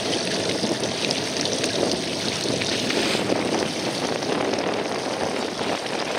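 Small inflatable boat under way on choppy lake water: a steady rush of outboard motor, water and wind, without pause or change.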